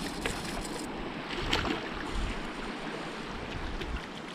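Water splashing as a hooked brook trout thrashes at the surface of a pond on a short line, over a steady rush of water.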